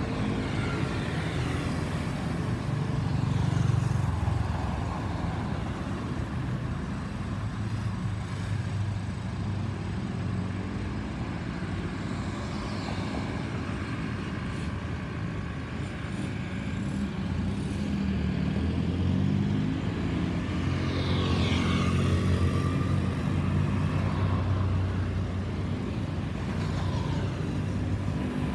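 Steady low rumble of road traffic and a jet airliner climbing out overhead, the Airbus A320's engines mixed into the traffic noise. Vehicles pass close by several times, each with a falling sweep in pitch, around twelve seconds in, about twenty-one seconds in, and near the end.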